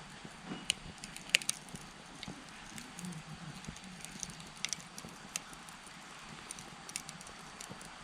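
Wood campfire burning in a Coleman Fire Disk fire pit: irregular sharp crackling pops over a low, steady rustle of flame. The loudest pop comes about one and a half seconds in.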